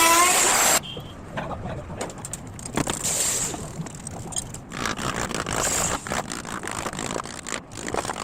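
Workshop handling noises: irregular scraping and rustling with short clicks and knocks. In the first second a steady whining machine tone cuts off abruptly.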